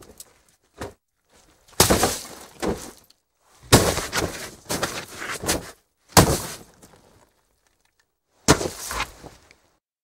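A person's body falling into snow again and again: heavy crunching thuds, each followed by a short scuffle of snow. There is a light knock just under a second in, then four falls about two seconds apart. The second fall is the longest, with several hits in a row, as of a body rolling.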